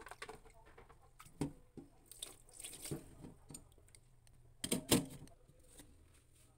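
Glutinous rice being washed by hand in an aluminium pot of water: soft irregular sloshing and swishing, with two louder knocks about five seconds in.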